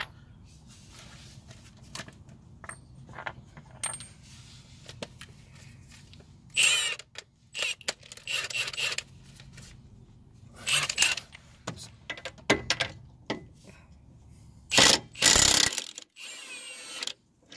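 Wrench and socket working on the strut bolts at the steering knuckle: metallic clinks and rattles in a series of short bursts, the loudest pair near the end.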